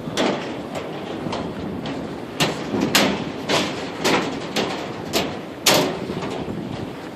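Gale-force wind buffeting the microphone: a steady rushing noise broken by hard thuds, about two a second after the first couple of seconds.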